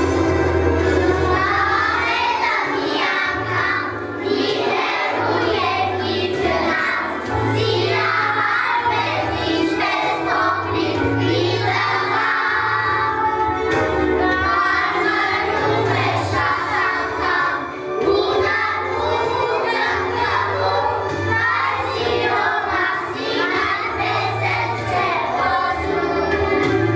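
A group of young children singing a song together over a recorded backing track with a steady bass line.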